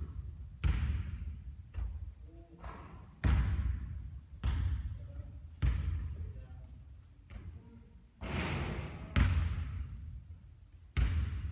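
Basketballs bouncing hard on a court during repeated three-point shooting: about a dozen sharp thuds, roughly one a second and unevenly spaced, each dying away in a short ring.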